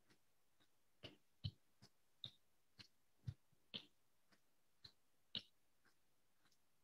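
Faint, irregular light clicks and taps, about a dozen, roughly half a second apart, over near silence.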